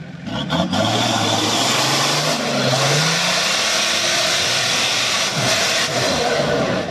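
A diesel 4x4 engine revved hard at full throttle as the vehicle claws up a muddy slope, its pitch rising over the first few seconds, with the rush of wheels spinning in mud. Thick black exhaust smoke shows the diesel is under heavy load.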